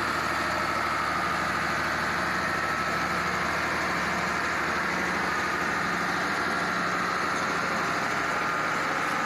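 An engine idling steadily, an even low hum that does not change speed.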